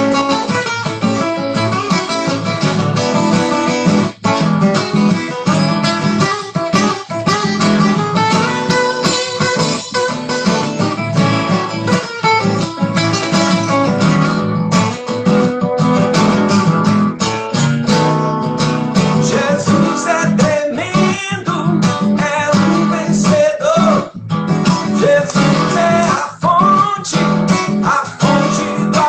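Guitar playing an instrumental passage, with picked notes and strummed chords.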